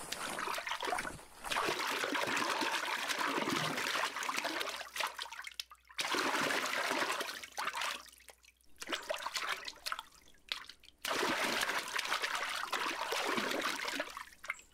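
Water running and splashing steadily from the spouts of a stone fountain. It breaks off abruptly twice.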